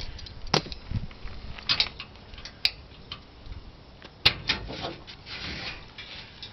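Scattered sharp metallic clicks and clanks of hand tools and clamps being handled against sheet metal. A loud knock comes about four seconds in.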